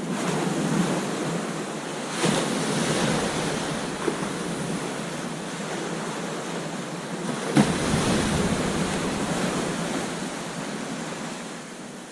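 Ocean surf breaking on a sandy beach. One wave crashes about two seconds in and a bigger one a little past halfway, each followed by a long wash of foam and receding water.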